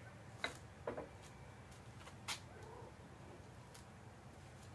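Clay cooking pots being set down on a metal grate inside a masonry oven: a few short, sharp clinks, the loudest about two seconds in.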